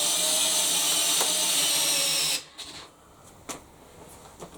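Makita XPH06 18 V cordless hammer drill in low gear, running steadily under heavy load as it drives a long landscape screw without a pilot hole into a thick stack of timber. The motor stops abruptly about two and a half seconds in, leaving only a few faint clicks.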